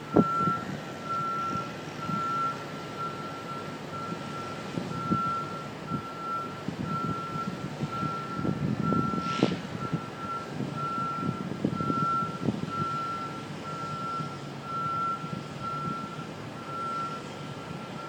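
Construction equipment's warning alarm beeping steadily: a single high tone about once a second, over a low city rumble with a few short knocks.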